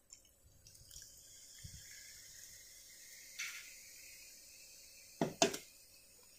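Faint steady fizzing hiss from Coca-Cola freshly poured over ice in a glass mug. Two sharp clicks or knocks come a little after five seconds in.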